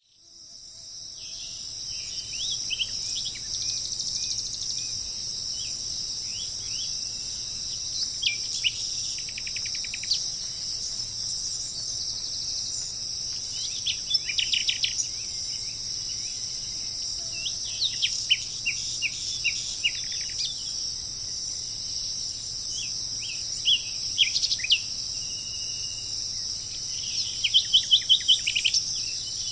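Wild songbirds singing short phrases of quick notes every few seconds over a steady high insect chorus. The sound fades in over the first second or two, and the loudest run of rapid notes comes near the end.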